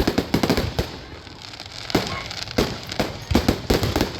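Fireworks display going off: quick clusters of sharp bangs and pops, a burst right at the start and more from about two seconds on.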